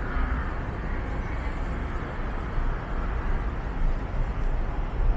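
Steady city background noise: a continuous low rumble with a hiss above it and no distinct events, the kind of traffic-like din heard walking through a busy urban area.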